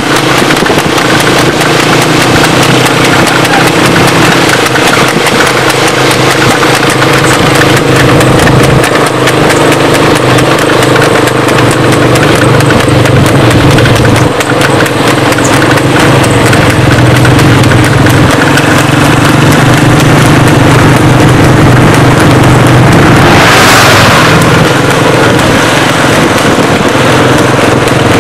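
A racing horse's hooves clip-clopping in a steady rhythm over the steady running of motor vehicle engines. A brief rushing swell of noise rises and fades late on.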